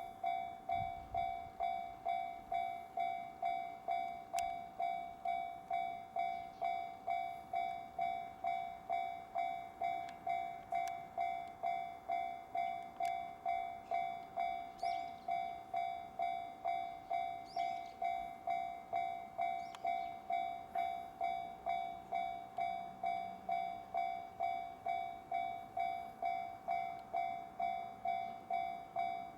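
Japanese railway level-crossing alarm bell ringing steadily, a repeated electronic 'kan-kan' ding at a little under two strikes a second.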